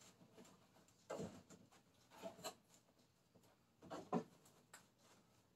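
Faint handling noises: three brief rubs and knocks as an old door card is shifted across a sheet of new board, with near silence between them.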